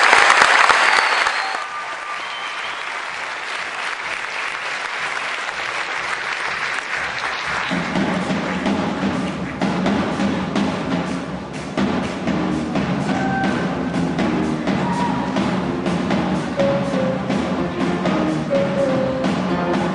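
Audience applause, loud at first and dying away over the first couple of seconds. About eight seconds in, a live school band starts playing: drums keep a steady beat under low held notes, with higher notes coming in later.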